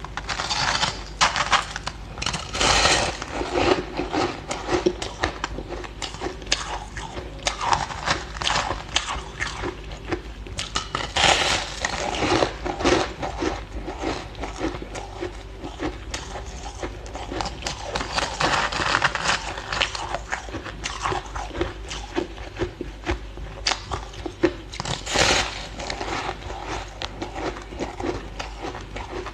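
Packed shaved ice being bitten and chewed: a continual run of crisp crunches and crackles, with louder bouts of biting every few seconds.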